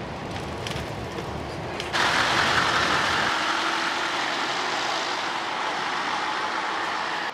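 Steady low road rumble of riding in a moving coach; about two seconds in it cuts to louder, steady engine and road noise of a coach pulling away from a bus stop.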